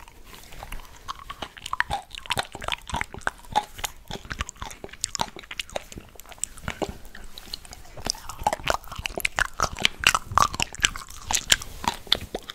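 Close-miked chewing of fresh fruit: a dense run of small wet clicks, squelches and crunches from the mouth, getting louder and busier in the second half.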